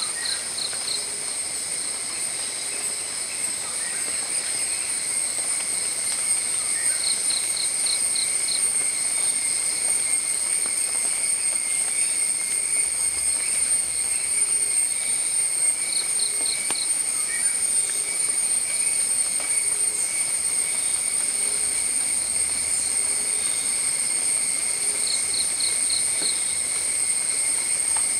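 Steady insect chorus of several continuous shrill tones, with a short run of four or five quick chirps repeating about every eight to nine seconds.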